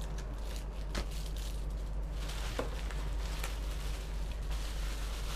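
Plastic bubble wrap crinkling and rustling as packed items are handled and lifted out of a cardboard box, starting about two seconds in after a few light clicks, over a steady low hum.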